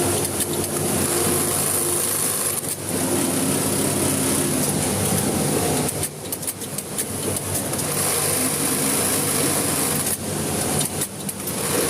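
Electric sewing machine running in long runs, with brief stops about three seconds in, around six seconds and again near ten to eleven seconds.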